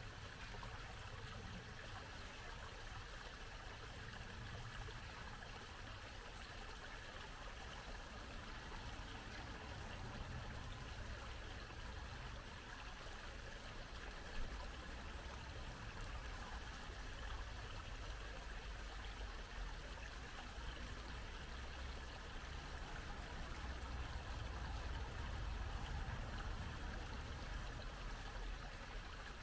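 Small brook babbling steadily, an even rush of running water with a low rumble underneath. A single brief sharp sound stands out about halfway through.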